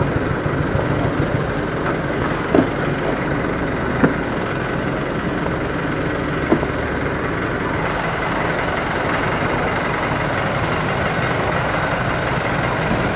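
Motorcycle engine idling steadily close by, with three short clicks in the first half.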